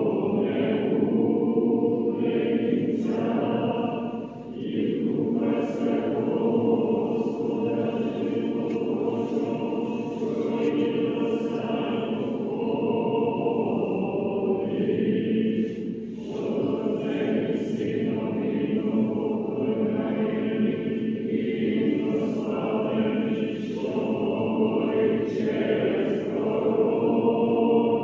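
Church choir singing an unaccompanied Orthodox liturgical chant, with short pauses about four seconds in and again about sixteen seconds in.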